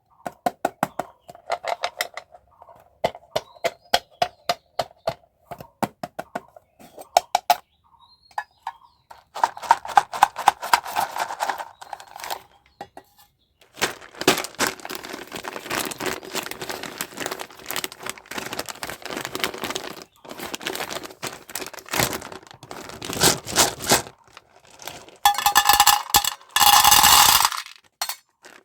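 Candy and toy packaging being handled and opened: first a quick run of light clicks and taps, then long stretches of crinkling and rustling, loudest near the end.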